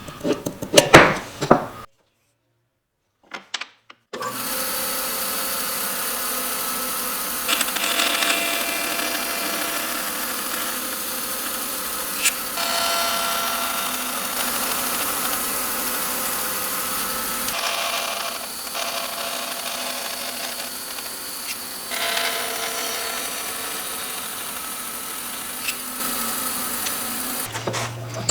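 A few sharp knocks, then a short dead gap, then an electric woodworking power tool running steadily for over twenty seconds as it works on walnut, its sound shifting slightly now and then.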